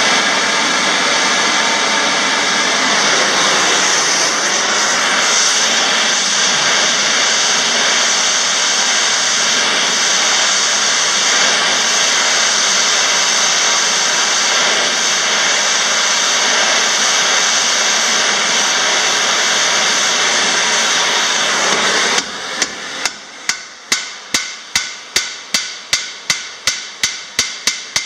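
Gas torch burning with a steady loud hiss as it heats a steel rivet for hot riveting a strake to the wheel rim. About 22 seconds in the torch cuts off and a hammer strikes the hot rivet about seventeen times, roughly three blows a second and getting quicker, closing up the rivet head.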